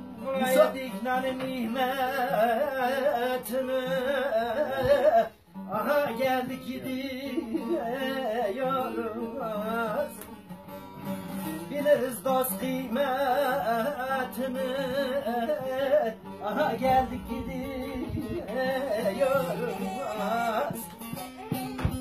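A man sings a Turkish folk tune in a wavering voice over a plucked bağlama (saz), with a brief break about five and a half seconds in.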